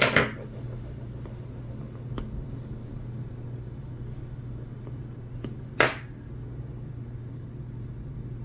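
Plastic toy doctor-kit instruments being handled: two brief scraping sounds, one at the start and one about six seconds in, with a few faint clicks, over a steady low hum.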